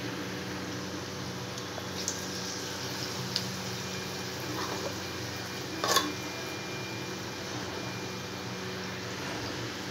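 Urad dal vadas sizzling and bubbling steadily as they deep-fry in hot oil in a kadhai, over a low flame. A few light clicks come through, the sharpest about six seconds in.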